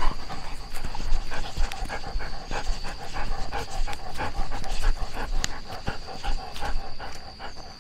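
A dog panting in quick, even breaths.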